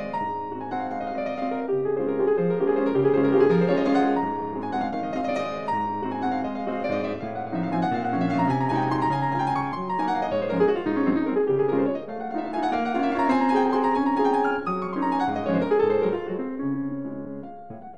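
Piano music playing a flowing line of notes, with quick rising and falling runs.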